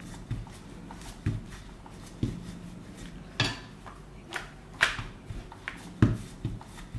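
Rolling pin working paratha dough on a stone board: a dull knock each time the pin comes down or is set back, roughly once a second, with short swishes of dough being lifted and turned. The loudest knock comes near the end.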